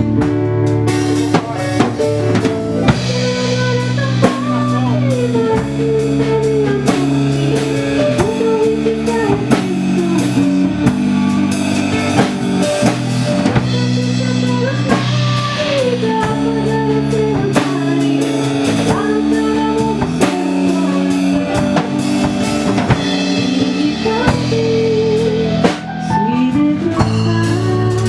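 A band playing with drum kit, guitars and bass, keeping a steady beat under sustained chords, and a lead melody line that bends and glides between notes.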